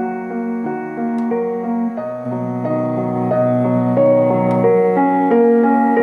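Piano-style keyboard melody playing through a SARDINE SDY-019 bluetooth speaker, a steady stream of single notes over held lower tones.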